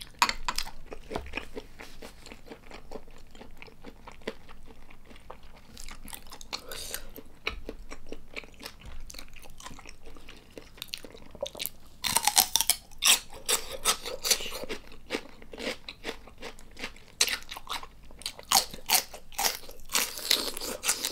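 Close-miked wet chewing of soft soy-marinated prawn. About halfway through it gives way to repeated loud, crisp crunches as a raw celery stalk is bitten and chewed.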